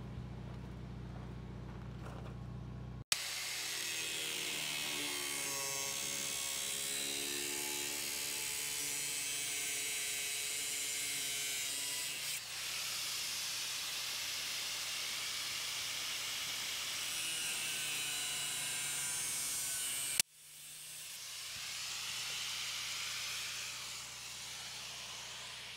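A high-speed power tool runs on metal in a few stretches joined by abrupt cuts, its whine wavering in pitch under load. A low hum comes before it for the first few seconds.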